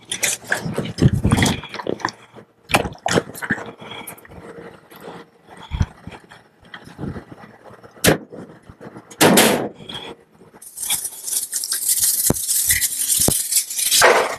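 Clunks and knocks from a flammables cabinet and plastic jugs of alcohol being taken out and handled, then a few seconds of steady rustling and scraping with small clicks near the end.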